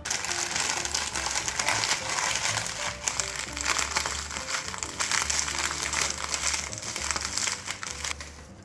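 Continuous dense crackling over soft background music; it starts abruptly and stops shortly before the end.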